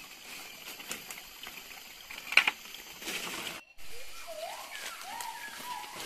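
Water of a small forest stream trickling and splashing, with one louder splash about two and a half seconds in. After an abrupt break past the middle, a bird calls in short rising, whistled notes.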